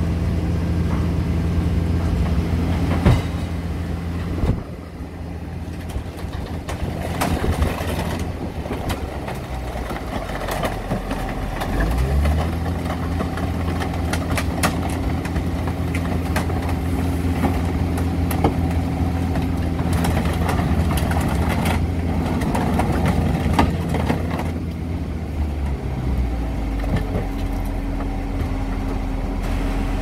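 Car baler's hydraulic power unit running under load as it crushes a car body, its drone changing pitch about 4, 12 and 26 seconds in as the compression stages change over. Sharp metal cracks and knocks come through as the body collapses.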